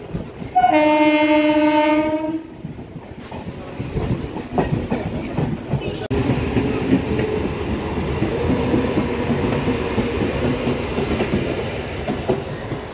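A train horn blows one loud, steady blast lasting about a second and a half, near the start. After it comes the rumble and clatter of a train running on the rails.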